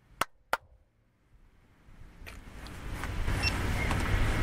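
Two sharp clicks in quick succession, then outdoor airfield ambience fading in from about two seconds in: a wash of background noise over a steady low hum.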